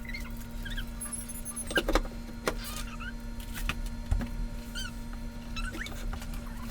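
A few sharp knocks and clicks, the loudest about two seconds in, over a steady hum, with chickens clucking now and then in the background.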